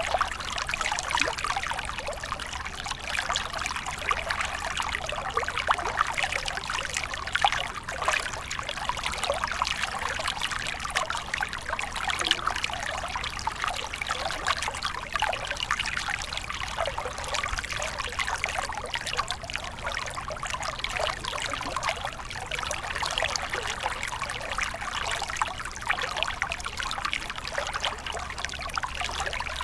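Trout stream running over rocks in a moderate current: a steady babble of small gurgles and trickles.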